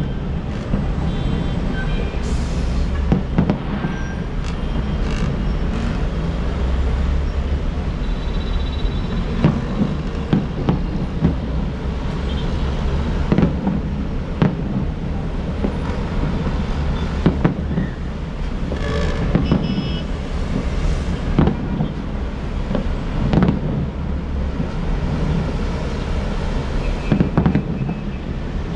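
Aerial fireworks bursting in an irregular series of sharp bangs over a steady low rumble.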